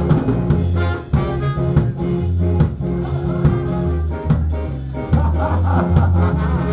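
Live ska horn section of trombone, trumpet and saxophones playing together over a bass line and drum kit.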